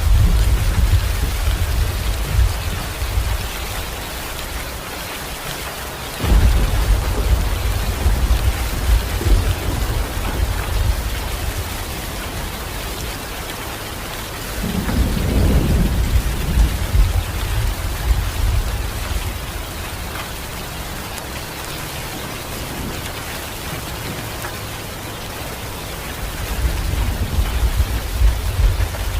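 Steady rain falling, with low thunder rumbling through it: a roll fading at the start, one breaking suddenly about six seconds in, another around the middle, and a third near the end.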